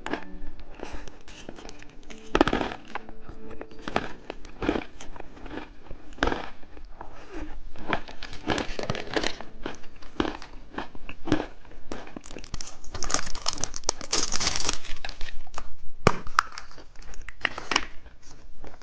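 Plastic candy packaging being crinkled, handled and torn open, with many short rustles and clicks. A denser burst of crinkling comes about two-thirds of the way through.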